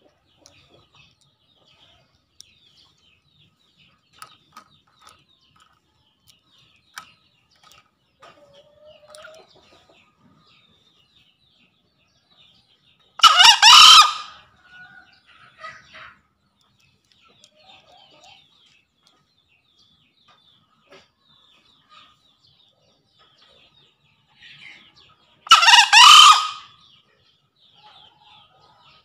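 Male green junglefowl crowing twice, about twelve seconds apart, each a short crow of about a second. The uploader presents it as a male calling out a rival. Faint small-bird chirps between the crows.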